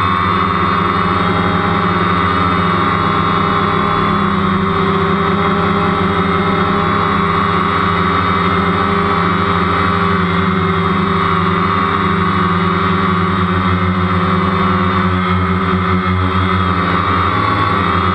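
DJI Phantom quadcopter's motors and propellers buzzing steadily in flight, heard from the camera on board: a loud, even drone of several tones whose pitch wavers slightly as the throttle shifts.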